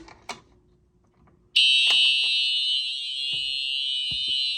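A couple of soft clicks, then about one and a half seconds in a Simplex TrueAlert fire alarm horn comes on suddenly and sounds loud and unbroken, set to a continuous signal rather than a pulsing pattern. A few faint knocks are heard under it.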